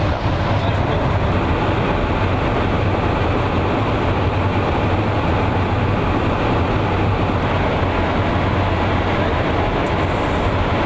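Steady drone of a KC-135 Stratotanker in flight, heard from inside the aircraft: engine and airflow noise with a strong low hum. A little more hiss comes in near the end.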